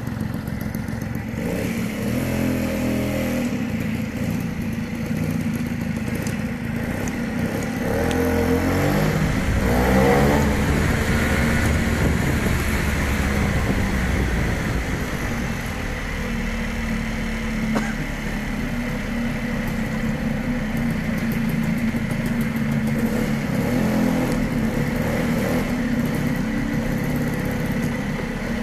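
Piaggio Ciao moped's small two-stroke engine running while being ridden. Its pitch climbs as it picks up speed, about two seconds in and again around eight to ten seconds in, and stays steady otherwise. The odd intermittent noise the owner was trying to record is not present.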